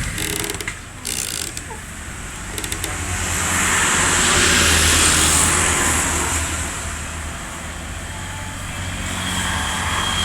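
A motor vehicle's engine running, with a low steady hum and road noise that swells and fades.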